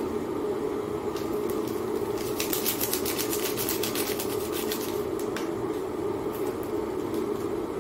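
A steady mechanical hum runs throughout. About two to four seconds in, a dense run of crinkling and crackling clicks comes from food packaging and a crispy piece being handled.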